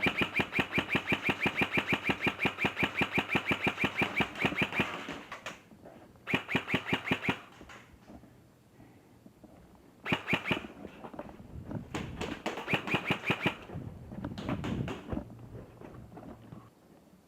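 G&G T91 airsoft electric rifle firing on full auto as rapid, even clicks. A long burst runs about five seconds, followed by shorter bursts of about a second around six, ten and thirteen seconds in.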